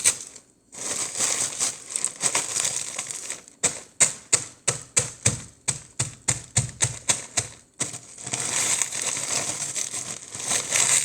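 Granite rolling pin crushing graham crackers in a bag: crunching and crinkling as it rolls, then a run of sharp strikes about four a second as it pounds, then rolling and crunching again.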